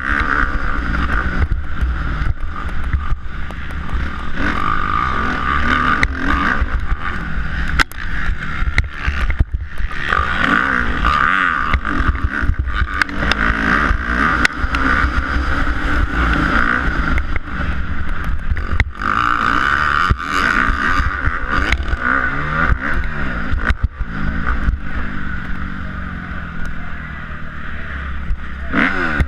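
Kawasaki KX250F's four-stroke single-cylinder engine revving hard under racing load, its pitch rising and falling with the throttle and gear changes and dropping off briefly several times, heard through a helmet-mounted camera. Short knocks from the bike over the rough track run through it.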